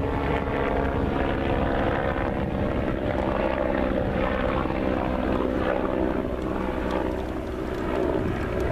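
An engine running steadily: a low drone with several held tones that does not stop or change much.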